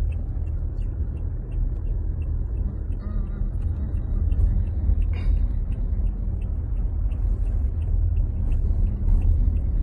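Steady low rumble of engine and road noise inside the cabin of a moving Toyota car.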